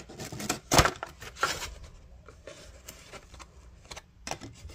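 Cardboard watch box handled and opened by hand: two sharp knocks in the first second, then cardboard scraping and rustling as the inner box slides out of its sleeve and is opened.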